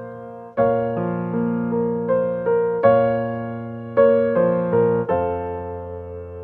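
Background music: soft electric piano playing a gentle melody over chords, notes struck and left to ring. A last chord is struck about five seconds in and slowly fades.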